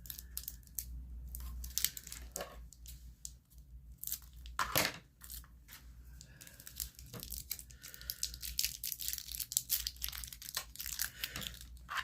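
Close hand-handling noises of craft work with modelling clay: crinkling, tearing and many small scattered clicks, with a louder knock about five seconds in and another near the end, over a faint low hum.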